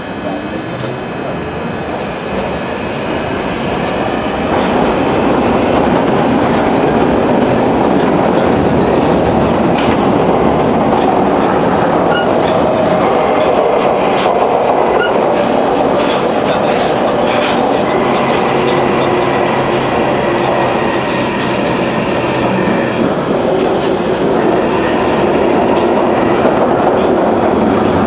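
London Underground Northern line train, heard from inside the carriage, pulling away and running through the tube tunnel. A traction-motor whine rises in pitch and the noise builds over the first few seconds as it picks up speed. It then settles into a loud, steady running rumble with occasional wheel clicks over rail joints.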